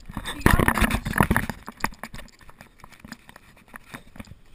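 Handling noise from a handheld action camera being swung around: rustling and knocks, loud for about the first two seconds, then lighter scattered clicks.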